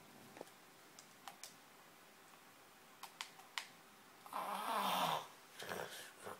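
A single snore about four seconds in, lasting just under a second, followed by a shorter, softer sound. Before it there are only a few faint clicks.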